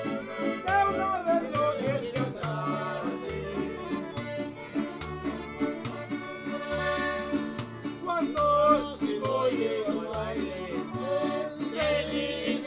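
Live band of accordion, violin, acoustic guitars and a small upright bass playing a lively regional tune, the bass plucking low notes about once a second.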